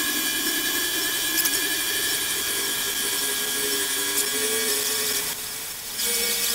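Benchtop CNC mini-mill cutting aluminum with a small end mill: the spindle gives a steady whine, while a lower tone wanders up and down in pitch as the cut moves along. The sound dips briefly about five seconds in.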